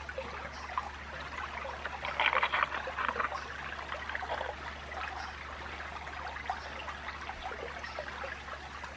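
Shallow creek water trickling and gurgling, picked up by a camera dipped in and out of the water. About two seconds in there is a louder second or so of sloshing and splashing.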